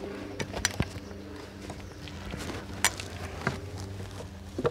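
Footsteps on the forest floor and several sharp wooden knocks as stripped wooden poles are handled and laid onto a bed frame, the loudest knock about three seconds in.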